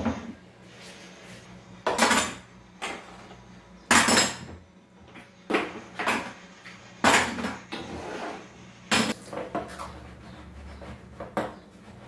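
Metal stove grate and burner caps being scrubbed and handled in a kitchen sink, clanking and clattering against the sink and each other in about ten separate knocks a second or two apart.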